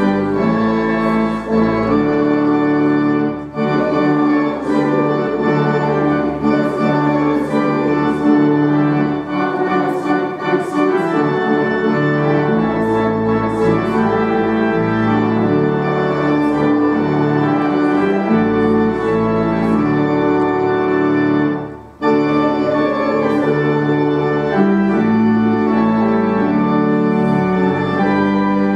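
Organ playing slow, sustained chords, with a short break between phrases about 22 seconds in.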